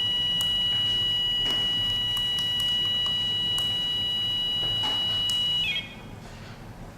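Homemade microcontroller alarm clock's buzzer sounding one steady high-pitched tone, set off because the clock was switched onto the preset alarm time. A few light clicks sound over it, and the tone cuts off about six seconds in with a brief warble.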